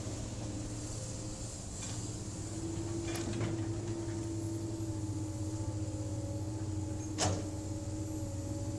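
Hydraulic excavator's diesel engine running steadily with a low drone, with a faint knock about three seconds in and a sharp metallic clank about seven seconds in.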